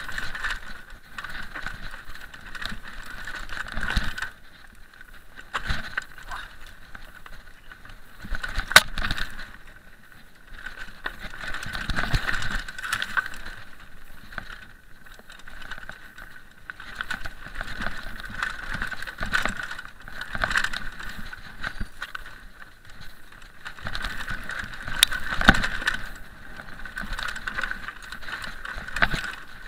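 Mountain bike riding fast down a rocky dirt trail: tyres rolling over stones and the bike rattling, with sharp knocks on the bigger hits, under a steady high buzz.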